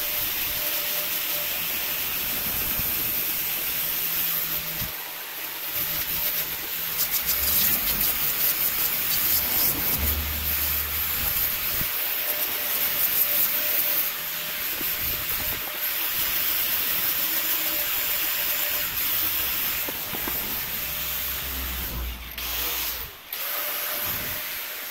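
Angle grinder fitted with a coarse paint-stripping wheel running against quad-bike seat foam and hardened gap-filler foam, a steady whirring hiss as the foam is ground back to the seat's shape. The grinding briefly breaks off a couple of times near the end.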